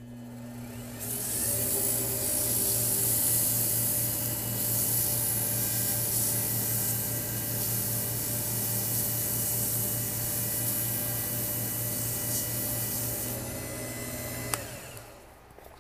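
Wood lathe motor running with sandpaper held against a spinning wooden pen blank: a steady hum with a loud hiss of sanding. The lathe comes up to speed in the first second or two, the sanding stops about 13 seconds in, and the lathe is switched off near the end and runs down.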